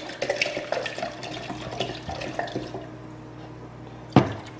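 Wine gurgling and splashing as it pours out of a glass bottle into a glass blender jar, dying down after a couple of seconds. A single sharp knock near the end.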